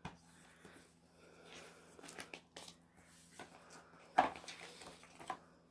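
Handling of a spiral-bound photobook and its cardboard album box: faint rustling and light taps, with one sharp knock about four seconds in as the book is laid down in the box.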